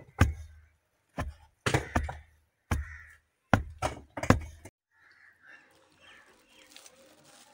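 A hand rammer (damusa) is pounded onto the earth floor of a foundation trench, compacting the soil to strengthen the foundation. There are about eight heavy thuds, one or two a second, and they stop suddenly about two-thirds of the way through, leaving faint background noise.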